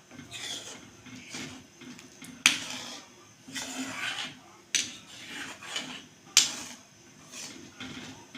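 A spoon stirring and scraping around a cooking pan of thin gram-flour and jaggery batter, with three sharp clinks of the spoon against the pan.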